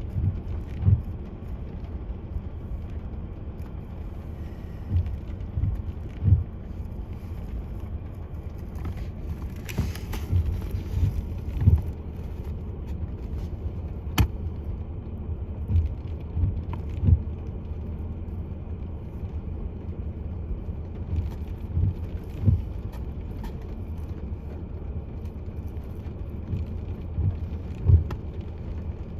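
Wind rumbling across the microphone, with irregular gusts thumping on it, and one sharp click about 14 seconds in.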